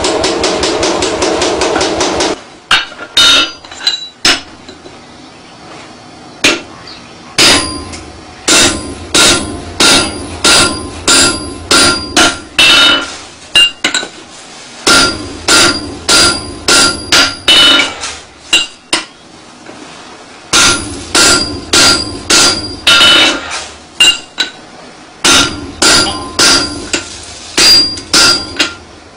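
A mechanical power hammer pounds hot iron in a rapid, even beat, which stops about two seconds in. Then a hand hammer strikes hot iron on a steel anvil in runs of ringing blows, roughly two a second, with short pauses between the runs.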